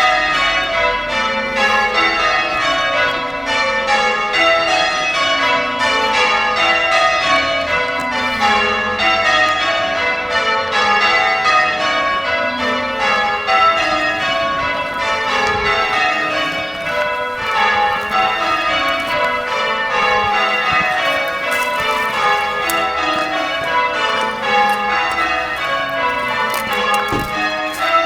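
The front six of a ring of eight church bells being rung full-circle, as in change ringing: a steady, unbroken stream of bell strikes, each note ringing on into the next, in repeated rows that step down the scale from the treble to the sixth.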